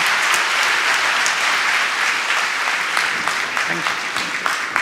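Audience applauding: many people clapping steadily, easing slightly near the end.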